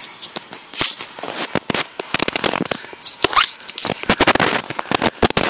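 A playing kitten scrabbling and pawing right up against the microphone: dense, irregular clicks, scratches and scuffles, busiest in the second half, with a short rising squeak a little past halfway.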